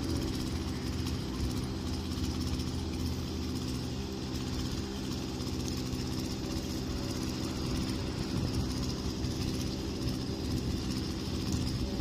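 An engine idling steadily, its speed unchanged throughout.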